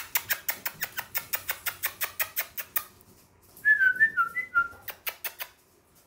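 Yorkie puppies' toenails clicking rapidly on a hard vinyl floor, about seven clicks a second, breaking off after about three seconds and returning briefly near the end. In the gap comes a run of short, high squeaks that rise and fall in pitch.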